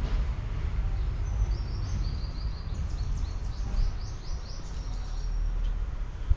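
A small bird singing a quick run of short, high chirps, about five a second, starting a little over a second in and lasting about three seconds, over a steady low rumble.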